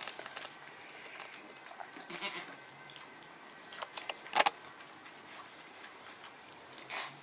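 A nanny goat licking her newborn kid in straw: quiet wet licking and straw rustling with scattered small clicks, one sharper click about four and a half seconds in.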